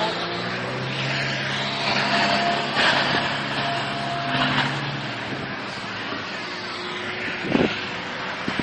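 A car running, with a steady engine hum under road and wind noise, and one short thump near the end.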